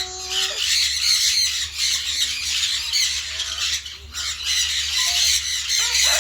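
Amazon parrot squawking and chattering in harsh, almost continuous calls. A held whistle-like note ends about half a second in.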